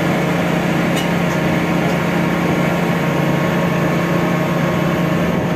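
Truck crane's diesel engine idling with a steady hum, and a light click about a second in.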